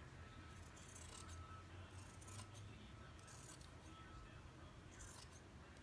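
Faint snips of scissors cutting fabric as the excess is trimmed around a wooden embroidery hoop, about four cuts roughly a second apart.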